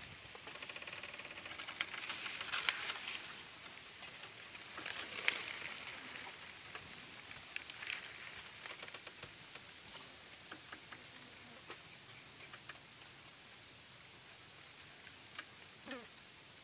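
Dry bamboo leaves and litter crackling and rustling under a hand working at an eel hole, with scattered small clicks. The crackles are loudest in the first five seconds and thin out after that.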